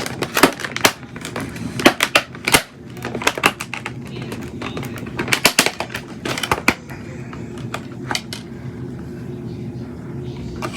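Rapid, irregular clicks and crackles of shipping packaging being handled while a snake is unpacked, easing off to a few scattered clicks about seven seconds in.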